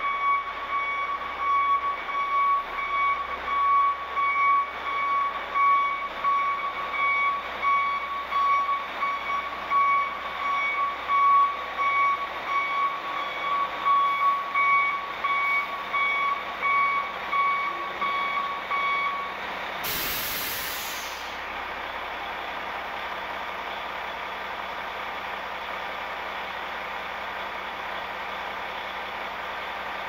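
Backup alarm of a 2006 Oshkosh concrete mixer truck beeping steadily as it reverses, cutting off about two-thirds of the way through. A second later a sharp hiss of air as the air brakes are set, then the diesel engine running steadily at idle.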